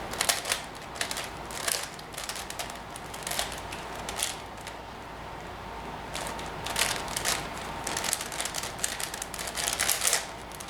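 Plastic 5x5 Rubik's cube (Rubik's Professor) being turned by hand: quick runs of clattering clicks as the layers snap round while edge pieces are paired, busiest near the start and again over the last few seconds.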